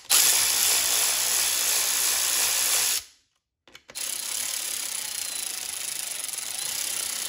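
Handheld power tool spinning a socket on a long extension, running in the mounting bolts of a new clutch master cylinder. It runs steadily for about three seconds, stops briefly, then starts again and keeps running.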